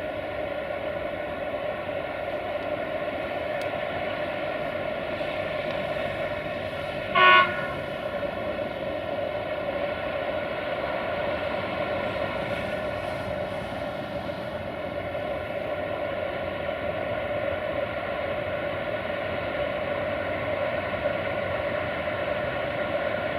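Class 480 electric freight locomotive running with a steady pitched hum. One short horn toot about seven seconds in.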